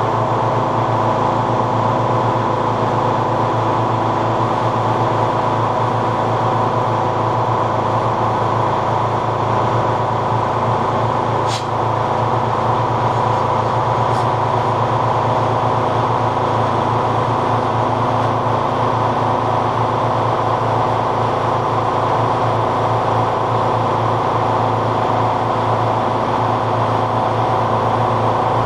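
Tuxing twin-cylinder high-pressure (HPA) air compressor running steadily while filling an air bottle, with a brief click near the middle.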